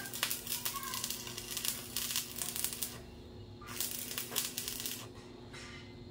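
Stick-welding arc crackling and sputtering as an electrode is run along a sidecar's metal frame, in a long run for the first three seconds, then shorter bursts with pauses between, over a steady low hum.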